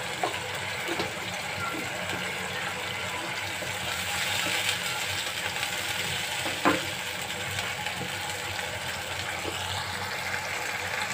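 Onion and spice paste with water bubbling and sizzling in a nonstick wok while a wooden spatula stirs it, with a couple of light knocks of the spatula on the pan.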